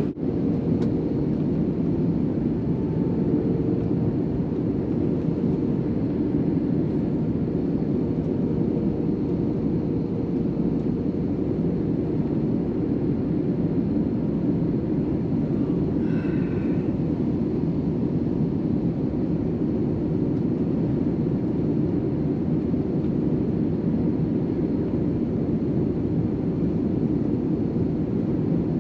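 Steady cabin noise of an Airbus A321 airliner descending: an even low rush of airflow and engine sound heard from inside the passenger cabin.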